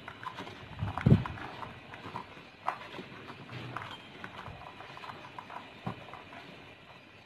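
Soaked chickpeas clicking and shifting against each other and the plastic tub as a hand stirs and squeezes them, in irregular knocks with a louder low thump about a second in.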